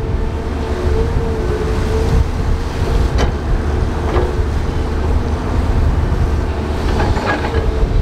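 Crawler bulldozer's diesel engine running hard with a heavy rumble and a steady whine as it pushes gravel, with a few sharp metallic clanks.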